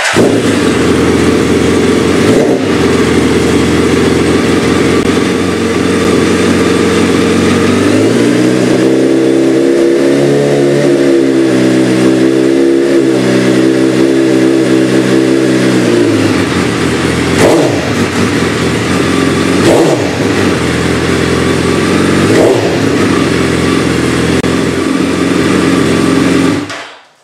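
2008 Suzuki B-King's 1340 cc inline-four running loud through a Two Brothers M2 exhaust with no power tips fitted. It idles, is held at higher revs for about eight seconds, drops back to idle, is blipped three times, and is switched off near the end.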